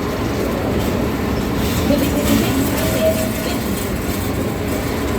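Amusement-park train running: a steady rumble and clatter of wheels on track, with a brief faint tone about three seconds in.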